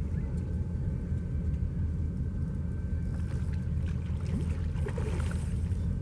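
Steady low rumble of wind buffeting the microphone. From about halfway a brief splashy hiss with a few light ticks as the hooked carp swirls at the surface.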